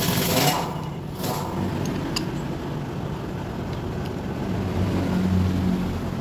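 An engine runs steadily in the background with a low hum. Near the start there are a few short clicks of metal planer parts being handled.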